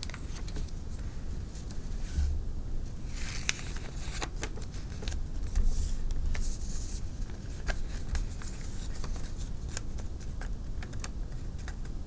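Paper being folded and creased by hand: crinkling rustles and scratchy creasing strokes with small clicks, louder in a couple of bursts, over a low steady rumble.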